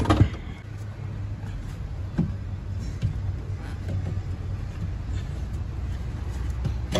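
Steady low hum with a few knocks and clicks from hands working the trim at the top of a car's rear seat and parcel shelf. The loudest knock comes right at the start.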